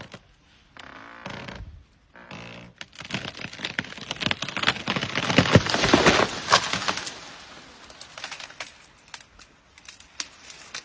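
Dead tree giving way under an elephant's push: the trunk creaks twice, then a few seconds of cracking and snapping wood as it breaks and crashes down, loudest about five to six seconds in, followed by lighter cracks as the branches settle.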